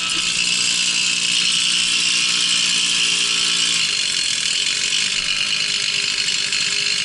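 Babetta moped's small single-cylinder two-stroke engine running steadily under way, its pitch shifting about four seconds in, over a steady high hiss.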